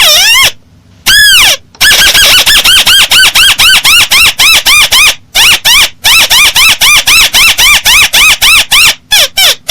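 Recorded call of a paddy-field crake (burung tikusan sawah), played loud as a bird-trapping lure: two long downslurred notes, then a fast run of short arched notes at about four a second with a brief break about five seconds in.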